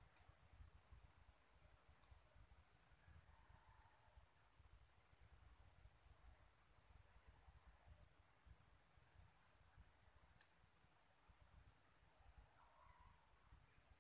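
Faint, steady, high-pitched drone of insects, two unbroken shrill tones with a low rumble underneath.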